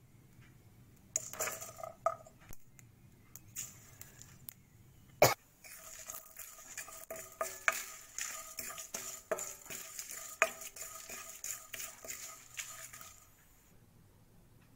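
Wooden spatula stirring and scraping dry-roasting lentils, cumin seeds and dried chillies in a nonstick pan, with no oil sizzle. A few knocks come first, then one sharp knock about five seconds in, then a stretch of busy clattering and scraping that stops about a second before the end.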